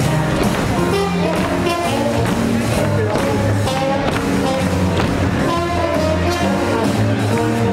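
Swing jazz music with a steady beat, played over a sound system for the Shim Sham line dance.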